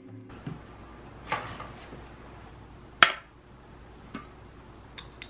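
Dishes and a glass jam jar being handled on a table: a soft knock about a second in, one sharp clack about three seconds in, and a few light taps near the end.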